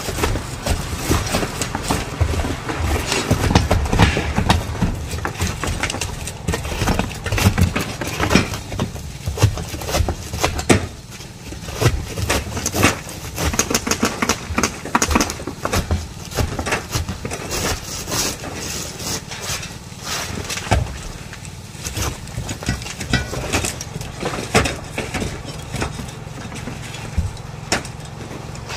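Roofing work on a shingle roof: a dense, irregular run of knocks, bangs and scrapes from the crew's tools and shingles, busiest in the first third. An engine runs steadily underneath.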